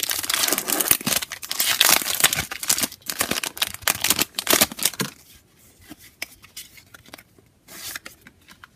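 Foil booster-pack wrapper of Pokémon trading cards being torn open and crinkled, a dense crackling for about five seconds. Then it goes much quieter, with a few light rustles as the cards are handled.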